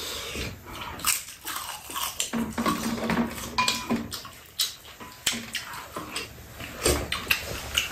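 Close-up eating sounds: chewing and mouth noises, with scattered clicks of a spoon and chopsticks against ceramic bowls and a metal tray.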